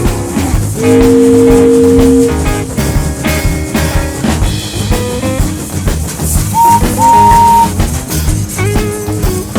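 Upbeat background music with drums and a steady beat. Two loud held tones stand out over it: one about a second in, and a higher one about seven seconds in.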